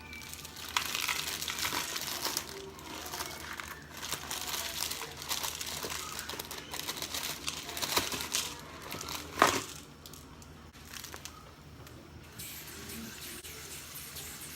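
Plastic instant-ramen packet crinkling and rustling as it is handled and torn open, with one sharp snap about two-thirds of the way in; it goes quieter after the snap.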